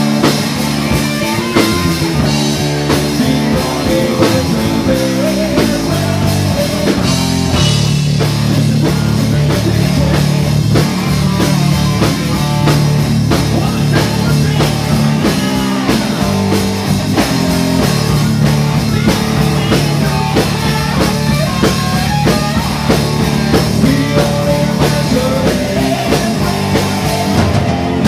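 Live rock band playing loudly: electric guitars and drum kit with a man singing over them.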